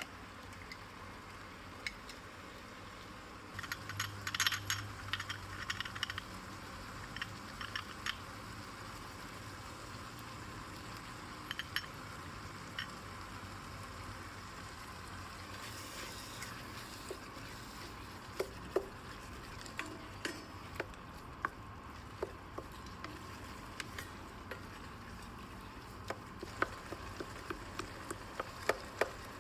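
A spoon stirring carrot jam as it cooks in a pot. A steady hiss runs under a burst of clinks and scrapes about four seconds in, followed by scattered small clicks.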